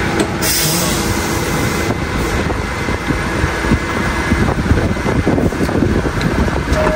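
New York City subway train standing at the platform, its equipment running with a steady low rumble. A short air hiss comes about half a second in, and a brief steady tone sounds near the end.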